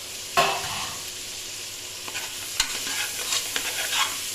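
Vegetables sizzling in hot oil in a pressure cooker, with a sudden loud clatter about half a second in as the cut potatoes go in. From about halfway through, a spoon repeatedly scrapes and stirs against the metal pot.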